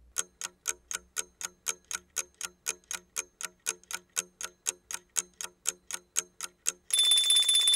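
Clock ticking sound effect, sharp even ticks about four a second, ending near the end in a short bright ring like an alarm going off.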